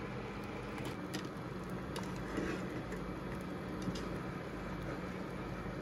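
Steady machine hum and hiss, with a few faint clicks.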